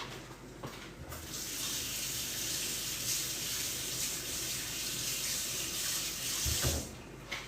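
Water running into a kitchen sink as a steady rush that starts about a second in and stops shortly before the end.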